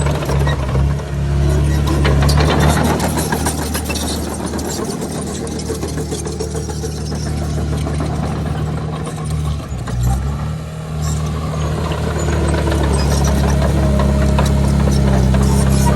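Komatsu D31PX crawler bulldozer's diesel engine running steadily, with a clatter of short metallic clicks over it. The engine note dips and shifts briefly about ten seconds in.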